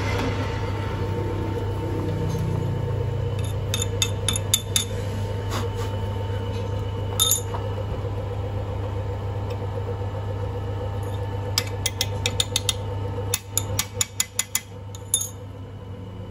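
Metal lathe's motor humming steadily while the spindle is stopped, with several bursts of sharp metallic clinks and taps as the cast-iron hub is loosened and shifted in the chuck jaws.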